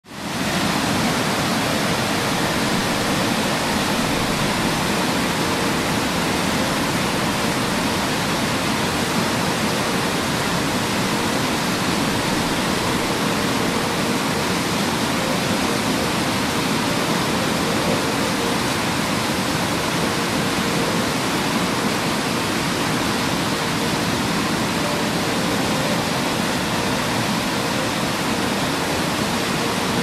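Waterfall: a steady rush of water falling into a pool, fading in at the very start.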